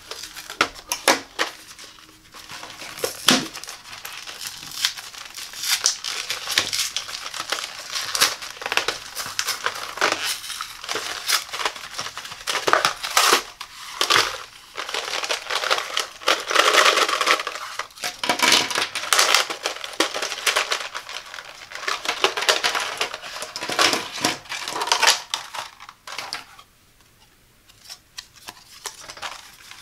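Plastic blister packaging of a pack of ballpoint pens being cut, crinkled and pulled apart by hand, with steady crackling and many sharp clicks and snaps. It goes quieter for a second or two near the end.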